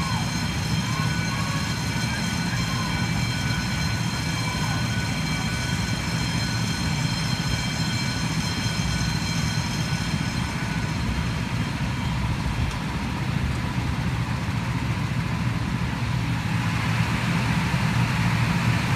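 Go-karts running on the track: a steady low engine drone, with a high steady whine over it that fades out about halfway through. The sound grows louder near the end.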